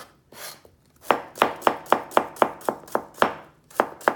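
Chef's knife slicing a cucumber into thin rounds on a plastic cutting board. After a short pause, an even run of chops starts about a second in, about four a second.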